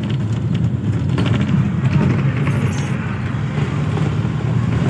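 Engine hum and road noise of a moving road vehicle, heard from inside its cabin, steady throughout, with a short patch of light rattling about a second in.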